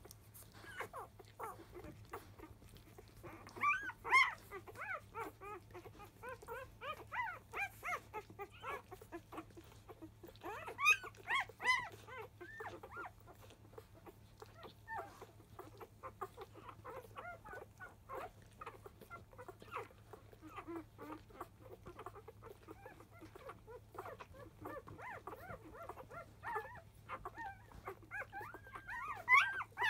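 Newborn Labrador Retriever puppies squealing and whimpering as they nurse, a constant run of short, high, wavering cries from several pups at once. The cries grow louder about four seconds in, again around eleven seconds, and near the end.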